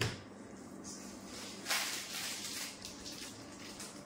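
Georgette long frock and dupatta rustling as the wearer moves, with one louder swish a little under two seconds in.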